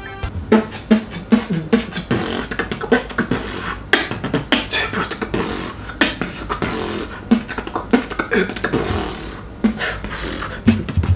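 A man beatboxing: a fast run of mouth-made drum hits and clicks with short voiced notes in between.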